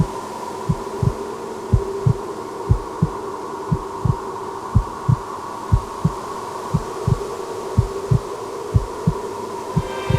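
Heartbeat-like double thumps, about one pair a second, over a steady held drone, with more tones building in at the very end.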